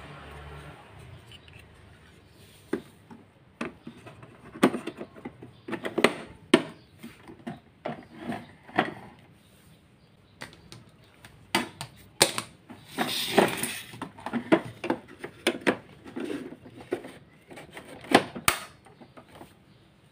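Plastic parts of an Akira canister vacuum cleaner being handled and fitted back together: a filter cover pressed on and the hose pushed into its inlet. It makes an irregular string of clicks and knocks, with a short scraping rattle partway through.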